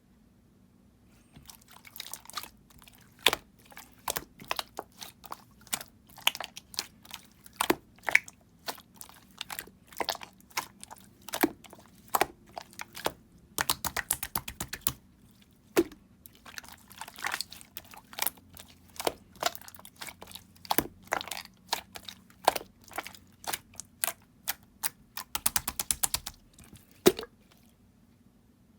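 Colourless clear slime being squeezed, stretched and pressed by hand, giving irregular sharp clicks and pops as air pockets burst, with quick runs of pops now and then. It starts about a second in and stops shortly before the end.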